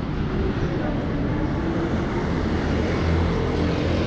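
Street traffic noise: a vehicle engine running close by, with the rumble of traffic and faint voices.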